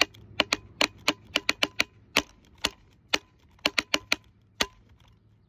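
Drumsticks beating a quick, uneven rhythm on a hard plastic jug: a run of sharp clicking strokes, some in fast flurries, that stops a little before the end.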